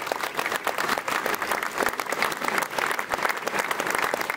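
A small crowd applauding steadily, many hands clapping at once, just after a speaker finishes with "merci".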